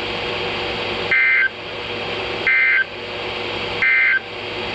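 NOAA Weather Radio sending the EAS end-of-message SAME data: three short, identical two-tone digital bursts about a second and a half apart, over a steady hiss of radio static.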